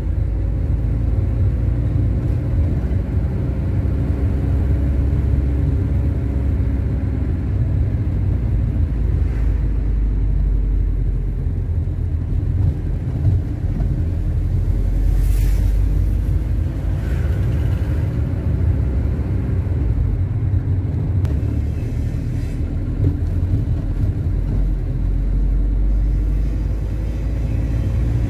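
A car driving through town streets: a steady low rumble of engine and road noise, with the engine note slowly rising and falling as it speeds up and slows down.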